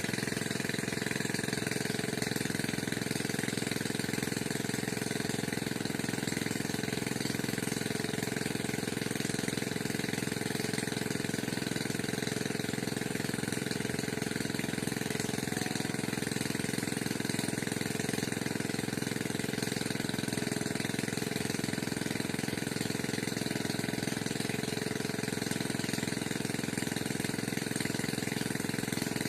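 A steady, unchanging mechanical drone, like an engine running.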